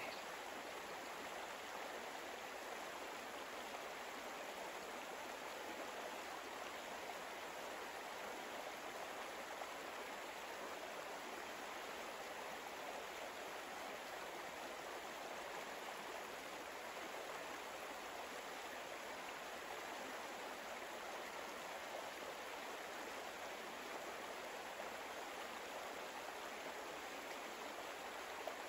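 Steady, even sound of a flowing stream, a relaxation ambience track.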